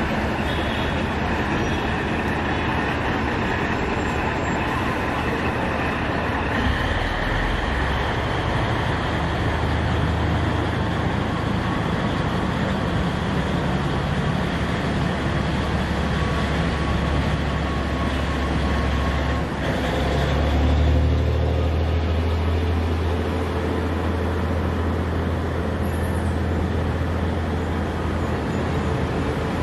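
Passenger train rolling slowly along the tracks, a steady low rumble of the carriages that swells a little about two-thirds of the way through.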